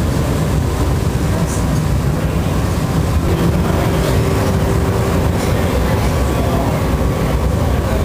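Steady low roar of a glass studio's gas-fired furnace and glory hole burners, with a faint steady hum joining about three seconds in.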